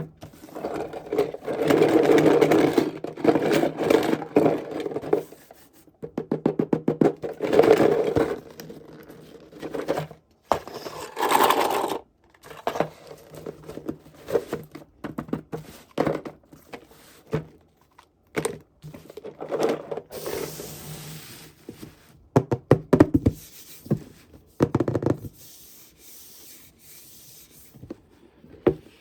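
Hands unboxing small plastic toys: packaging and pieces rubbing, scraping and clicking together in irregular bursts with short pauses.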